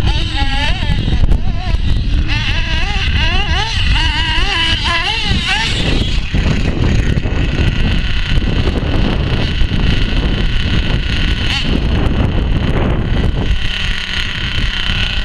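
Radio-controlled car motors revving up and down in quick glides for the first few seconds, then running at a steadier high pitch, over heavy wind noise on the microphone.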